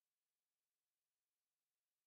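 Digital near silence: only a very faint, even hiss.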